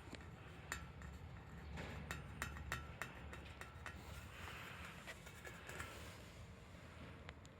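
Light metallic clinks of transmission parts and tools being handled during disassembly, a quick run of short ringing taps in the first few seconds and a few more spread out after, over a faint low hum.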